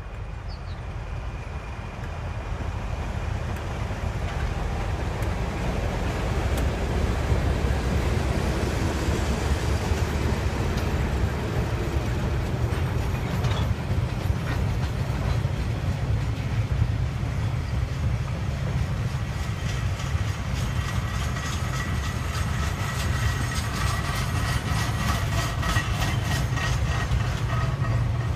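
TasRail diesel-electric freight train passing: the locomotive's engine rumble builds over the first several seconds as it approaches, then a long string of container wagons rolls by with a steady low rumble. In the second half, regular clickety-clack of the wheels over the rail joints and a thin high whine join in.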